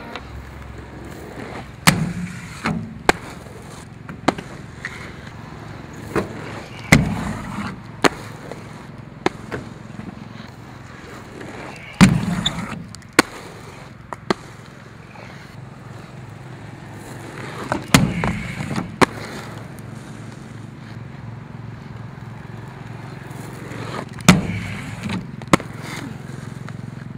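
Aggressive inline skates rolling on asphalt, with sharp clacks and short scrapes as the skaters pop, land and grind on concrete ledges, coming in clusters every few seconds.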